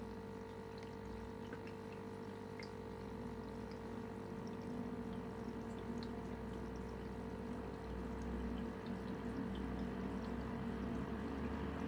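Aquarium equipment running: a steady hum from a filter or air pump, with water trickling and small drips or bubbles popping.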